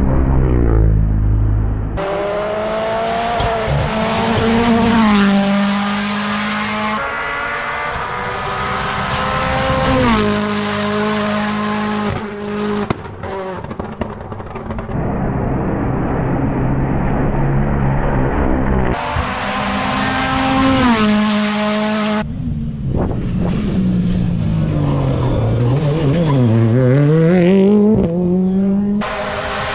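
Rally cars going by at speed, one after another, engines revving high and climbing through quick upshifts. Near the end one drops in pitch as it brakes for a corner, then pulls away again.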